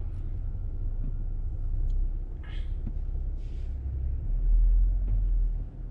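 Low rumble of a car rolling slowly, heard from inside the cabin, swelling louder for about a second past the four-second mark.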